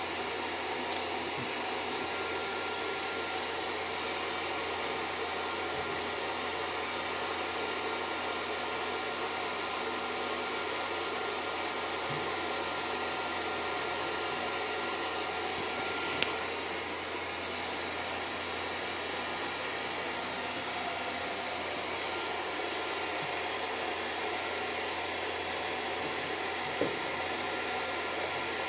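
Steady, even background hiss and hum of room or equipment noise, with a faint thin tone through the middle part and two soft clicks, one about halfway through and one near the end.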